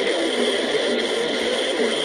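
Radio broadcast of a severe thunderstorm warning received through heavy static. The reading voice is indistinct and buried in steady hiss, and the sound is thin, with no bass.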